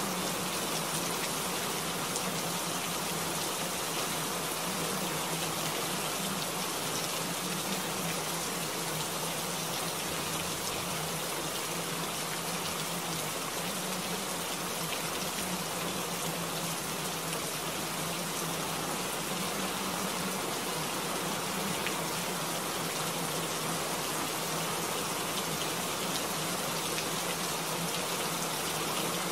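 Steady rain ambience: an even hiss of falling rain with faint scattered drop ticks and a low steady hum underneath, unchanging throughout.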